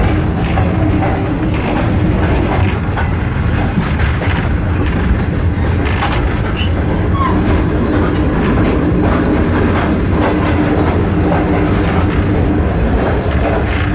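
Passenger train running along the track, heard on board: a steady rumble with wheel clatter over the rails and a steady low hum.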